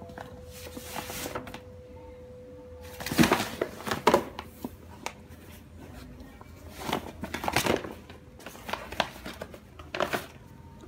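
Kraft-paper mailing envelope crinkling and rustling in irregular bursts as a cat wriggles inside it, loudest about three seconds in and again around seven and ten seconds in.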